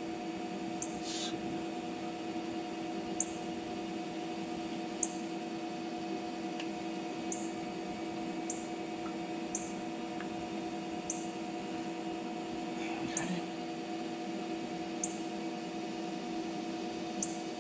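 A steady machine hum made of several level tones, with about ten short high chirps or ticks scattered over it every second or two.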